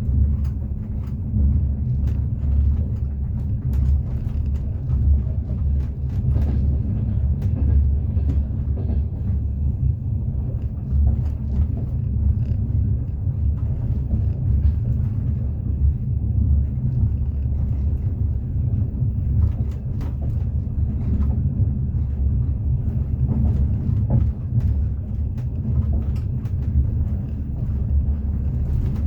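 Steady low rumble of a moving passenger train heard from inside the carriage, the wheels running on the rails, with faint scattered knocks over it.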